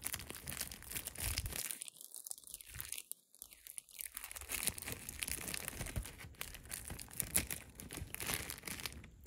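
A dried, papery seed capsule of a vining flower being broken open and crumbled between fingers: faint crackling and crinkling, with a short lull about two seconds in.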